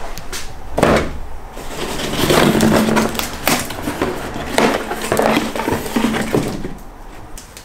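Long cardboard box being opened and handled: cardboard flaps scraping, flexing and crinkling in irregular bursts as a throttle cable is lifted out.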